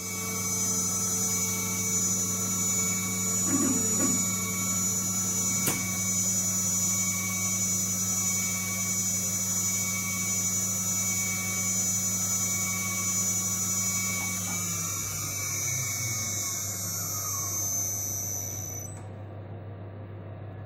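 Spindle of a small DIY CNC mill running with a steady high-pitched whine over a low electrical hum, then spinning down and stopping about nineteen seconds in, leaving only the hum. The cut has gone wrong: the maker judges it too aggressive, with aluminium welded to the cutter tip. A single sharp click sounds about six seconds in.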